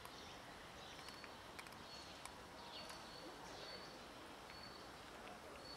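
Faint outdoor background near silence, with a few short, high chirps from distant birds.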